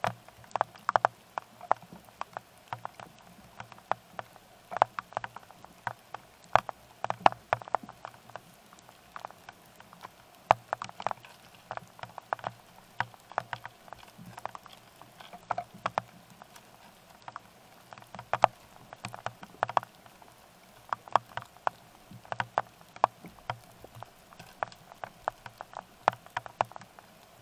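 Raindrops striking the trail camera's housing: irregular sharp taps, several a second, some louder than others, over a faint steady low hum.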